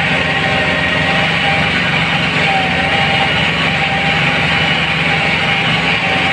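Farm tractor engine running steadily, heard close up from the tractor's own seat while tilling a field.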